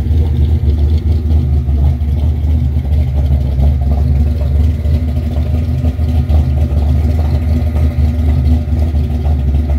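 Chevrolet 468 cubic-inch big-block V8 idling steadily with a choppy, lopey cam idle, running with its paper air-breather elements removed so it no longer chokes and stalls.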